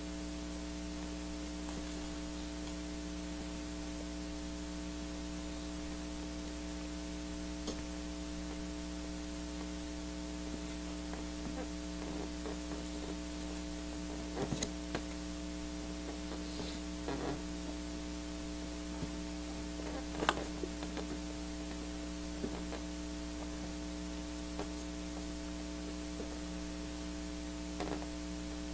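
Steady electrical mains hum with a buzzy, tonal drone, running unchanged. A few faint short clicks and knocks break through it now and then, the loudest about twenty seconds in.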